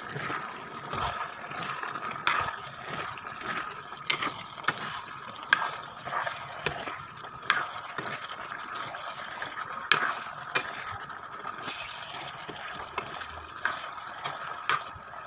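A metal spoon stirring chicken and potatoes in a wok, with repeated irregular clicks and scrapes against the pan over a steady hiss.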